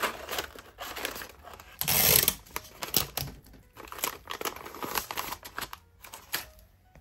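Kraft paper crinkling and rustling as it is folded and creased by hand, in uneven bursts, the loudest about two seconds in, dying away near the end.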